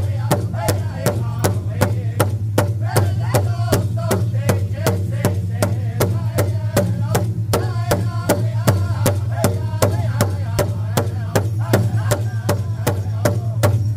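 Powwow drum group singing together over a large shared powwow drum struck in unison with sticks, in an even beat of about three strikes a second.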